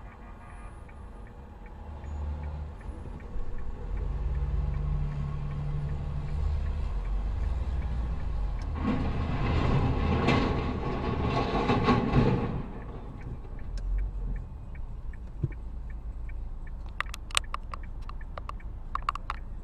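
A car engine rumbles low, then about nine seconds in a heavy vehicle crashes on the road ahead: a loud, noisy crash lasting about three and a half seconds. A few sharp clicks near the end.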